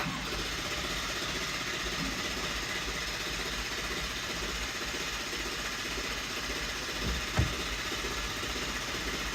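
A truck's engine making a steady mechanical drone that holds an even level and pace throughout.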